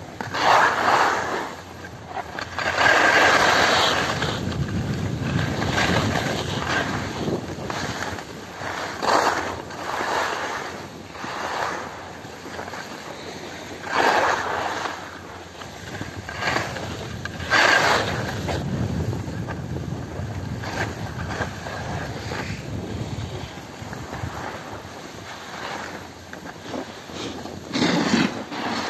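Wind rushing over the microphone of a phone carried by a skier going down a groomed piste, mixed with the hiss and scrape of skis on hard-packed snow. The rush swells in loud gusts every few seconds.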